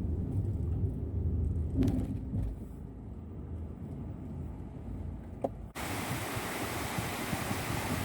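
Low, steady rumble of a car on the move, with a couple of light knocks. It cuts off abruptly about two-thirds of the way through and gives way to a steady rushing noise.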